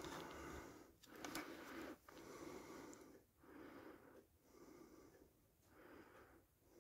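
Faint breathing close to the microphone: soft breaths in and out, each lasting about a second.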